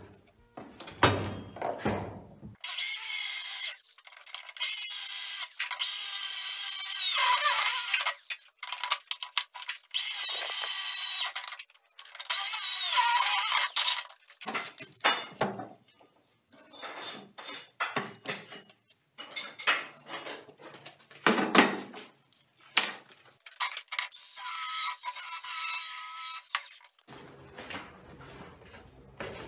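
Corded electric drill running in several bursts of a few seconds each, its whine rising and falling in pitch, with clinks and scraping of tools between the runs.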